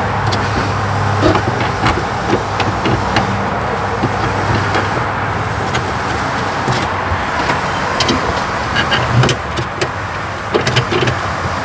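Scattered light clicks and knocks of a wrench and small parts being handled while 10 mm bolts are fitted, over a steady low rumble and hum.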